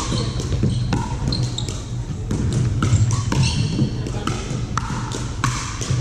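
Pickleball rally: paddles striking the hard plastic ball in a string of sharp pops at irregular spacing, echoing in a large gym, with short high squeaks from shoes on the hardwood court.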